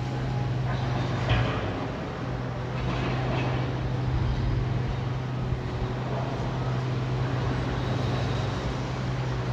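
A heavy machine's engine running steadily with a low, even drone, likely demolition machinery at work, with a few brief louder noisy surges over it, the sharpest about a second and a half in.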